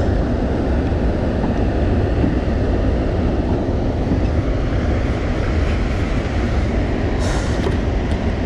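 Steady low roar of water pouring through a dam's open spillway gates, with a brief rattle near the end.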